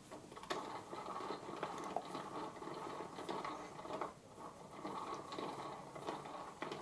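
Lathe chuck being turned with a T-handle chuck key: a continuous gritty metal scraping as the key works the chuck, with sharp clicks as it is reseated and a short break about four seconds in.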